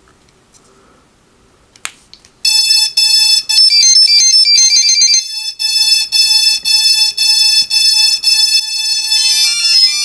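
A click as power is plugged in about two seconds in, then a loud run of electronic beep tones, several pitches at once and stepping up and down with short breaks, for about eight seconds: a hexacopter's electronics giving their power-up tones as the supply is connected.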